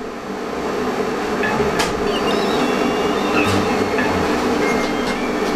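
A kettle being put on to boil: a steady rushing noise with a low hum that builds over the first second and then holds, with a few faint clicks.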